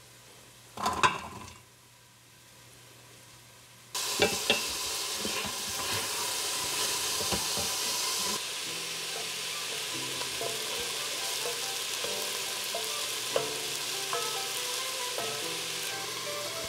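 Diced onion sizzling in hot olive oil in an Instant Pot's stainless steel inner pot on the sauté setting, stirred with a wooden spoon that scrapes and knocks against the pot. The steady sizzle starts suddenly about four seconds in, after a short knock about a second in.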